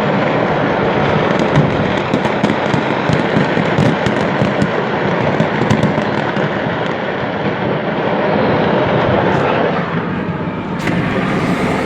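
Stored fireworks exploding in a continuous barrage: a dense rumble and crackle with many sharp pops and bangs, thickest in the first half and thinning toward the end.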